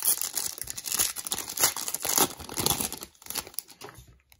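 Baseball card pack wrapper being torn open and crinkled by hand: a dense crackling rustle that dies away shortly before the end.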